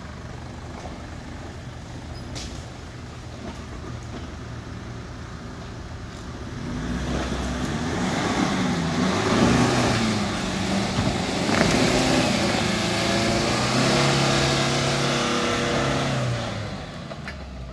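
Nissan Patrol off-roader's engine idling, then from about six seconds in revving hard for about ten seconds, its pitch rising and falling as the wheels spin and throw mud on a muddy climb, before dropping back to idle near the end.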